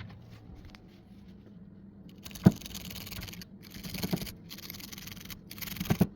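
Repair work on a car's front suspension: four bursts of hissing, scraping noise that start and stop sharply, with a few sharp knocks, the loudest about two and a half seconds in.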